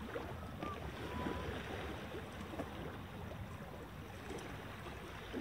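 Wind buffeting the microphone over small waves lapping on a rocky shore: a steady, rough outdoor noise. A few faint short chirps sound within about the first second and a half.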